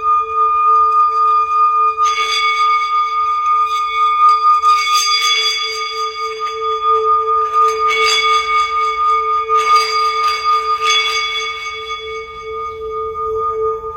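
Singing bowls ringing in two long, steady tones, one low and one higher. They are struck again about five times, each strike adding a brighter, shimmering ring over the hum.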